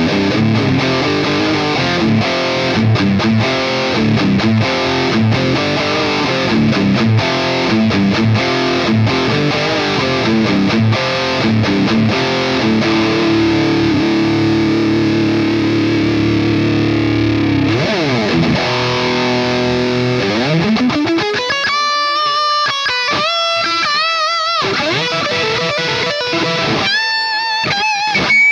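MUSI Virgo Fusion T-style electric guitar played with distortion: dense riffing with a long held chord, pitch slides about two-thirds of the way through, then sparser lead notes with string bends near the end.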